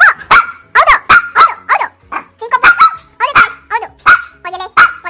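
Shih Tzu barking in a quick run of short, sharp barks, about a dozen of them, excited by a plush toy held in front of it.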